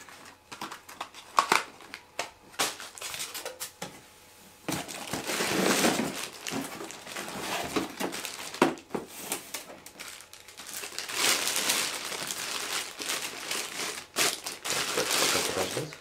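Plastic packaging crinkling and rustling in several stretches as parts are unpacked from a cardboard box, with scattered clicks and knocks of cardboard and parts being handled in the first few seconds.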